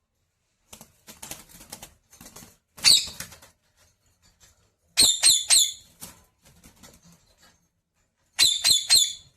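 Pet parrot giving short, shrill calls in two quick runs of three or four, about five and eight seconds in, after a stretch of scratchy rustling and a single call near three seconds.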